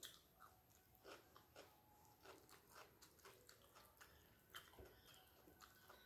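Faint close-up chewing of a mouthful of rice and fish curry, with irregular wet clicks and smacks of the mouth, and fingers mixing rice and curry on a steel plate.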